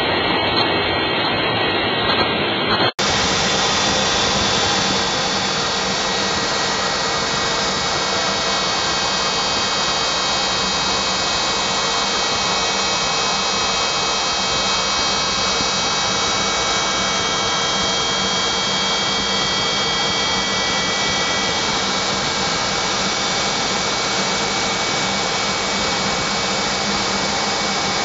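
Steady jet engine noise heard from inside a fighter cockpit, a rushing roar with a high turbine whine. About three seconds in, a cut switches to a brighter, clearer recording of the same kind of sound.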